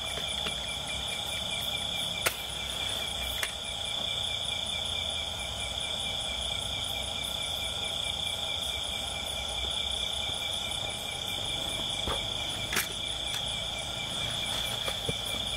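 A steady, high-pitched chorus of insects chirping and trilling without a break, with a few sharp clicks over it, the loudest about two seconds in.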